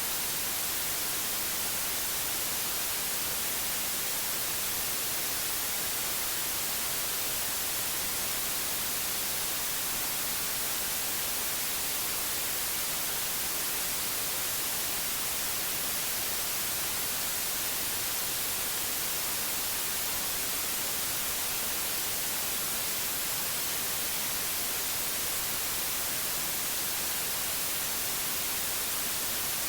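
Steady white noise: an even hiss, strongest in the treble, that never changes in level.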